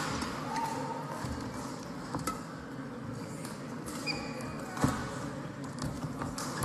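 Badminton rally: rackets striking the shuttlecock with sharp cracks about every two and a half seconds, and brief shoe squeaks on the court floor.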